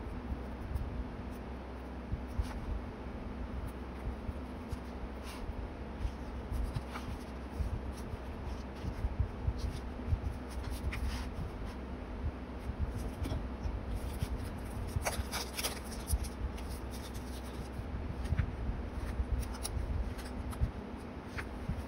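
Paper and notebook pages being handled: soft rustles, crinkles and light taps, with a run of crisper rustling about two-thirds of the way through. A steady low hum runs underneath.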